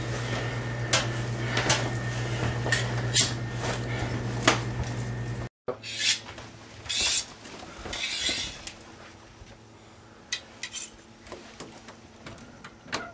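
Dishes and cutlery clinking and clattering in scattered knocks and short scrapes. A steady low hum runs underneath until it cuts off about five and a half seconds in, after which the clinks go on more sparsely and quietly.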